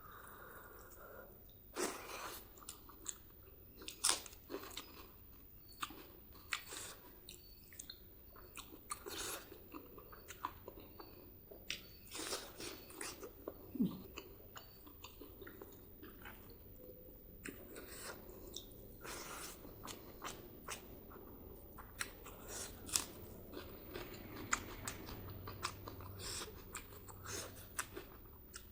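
Close-miked chewing and biting of spicy pork and rice: wet mouth sounds with irregular crunchy clicks and smacks, continuing throughout.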